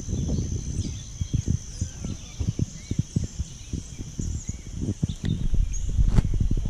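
Birds chirping over a steady high-pitched insect drone, with irregular low thumps and rustles close to the microphone.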